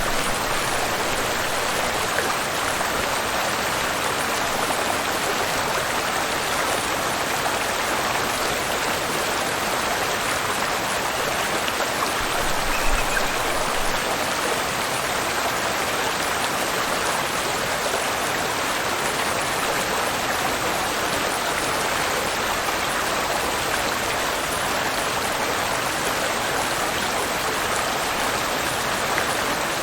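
Waterfall and river water rushing steadily, a dense, even hiss of falling and flowing water.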